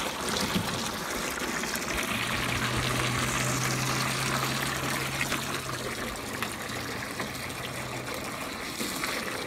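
A garden hose stream pouring steadily into a plastic kiddie pool that is being filled with water.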